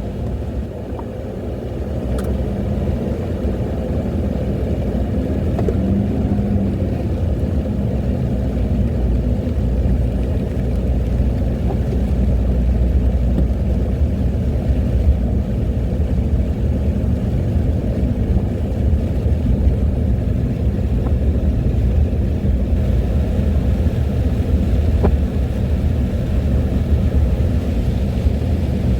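Car driving along: a steady low rumble of engine and tyre noise.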